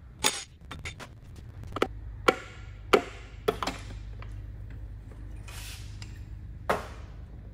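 Irregular sharp knocks and clicks as a hammer handle is tapped down on a connecting rod to drive a piston out through the cylinder bore of a 1275cc A-Series engine block, about half a dozen strikes, with a low steady hum underneath.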